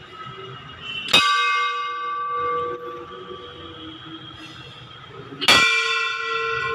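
Hanging brass temple bell struck twice, about four seconds apart; each strike rings on in several steady tones that slowly fade.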